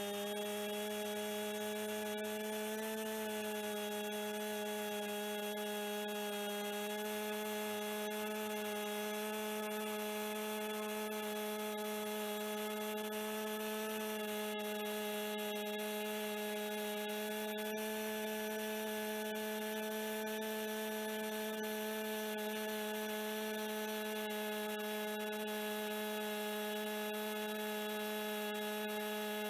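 Two-stroke chainsaw running at high revs while cutting through a Japanese cedar log, a steady high-pitched drone that dips slightly in pitch a few times in the first seconds as the bar takes load.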